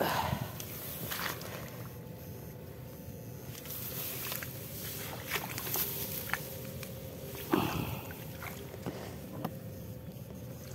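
Shallow paddy water splashing and sloshing as someone wades and works through it while electrofishing. The loudest splashes come at the start, about a second in, and about three quarters through.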